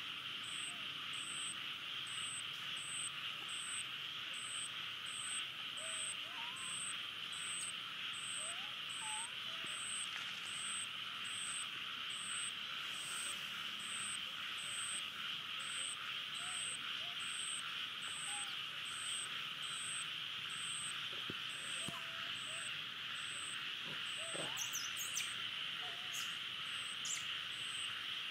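Steady buzzing insect chorus in tropical forest, with a higher-pitched chirp repeating a little more than once a second and a few faint short calls.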